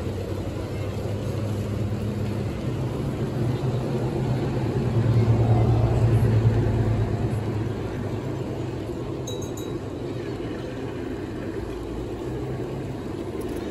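Large-scale model freight cars rolling past close by on garden-railway track: a steady low rumble of wheels on rail that swells to its loudest about halfway through, then eases back.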